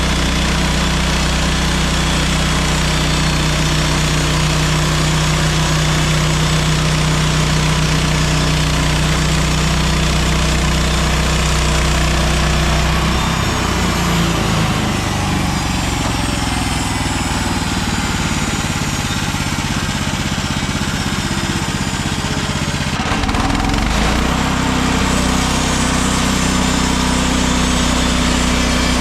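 Engine of a MechMaxx SM32 portable band sawmill running steadily. Its pitch shifts about 13 seconds in and dips briefly again about 23 seconds in, then settles at a new steady pitch.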